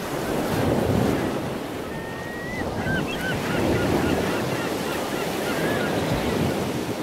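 Ocean surf and waves, a steady rushing wash, with a scatter of short high chirping calls in the middle stretch.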